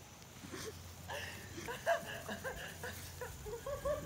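Beagle puppy whining in a quick series of short, high yips, starting about a second in.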